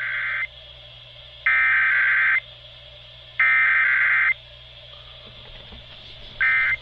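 Emergency Alert System digital header tones, the buzzy screech of the data bursts, sent three times, each about a second long with about a second between them. A much shorter burst near the end begins the end-of-message signal. It plays over a broadcast radio signal with a faint steady hum beneath.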